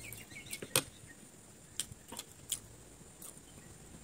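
Eating sounds: a handful of sharp, scattered clicks and taps of metal forks and spoons against the plate, with chewing.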